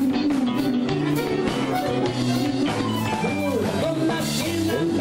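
Live gaúcho band music: an accordion playing the melody over a drum kit keeping a steady beat, with bass and guitar.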